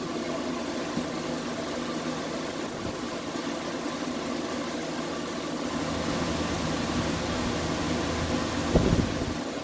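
A machine running steadily, an engine-like hum, with a low thump near the end.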